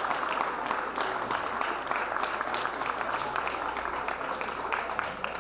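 Audience applauding, a dense patter of clapping that thins slightly near the end.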